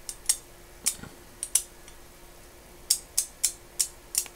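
Ratchet gear of an opened Proto 5449XLQR 1/2-inch-drive ratchet turned by hand, its teeth clicking over the spring-loaded pawl: sharp metallic clicks in two uneven runs, with a pause of over a second between them.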